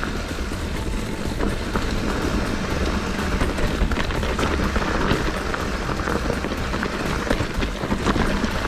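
Mountain bike riding fast down a rocky trail: tyres rolling over stones and grit with constant clicks and rattles from the bike, over a steady low wind rumble on the microphone.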